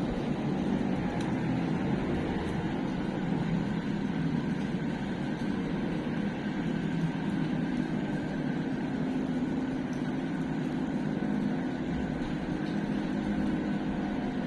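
A steady low droning hum with a faint higher whine above it, unchanging throughout.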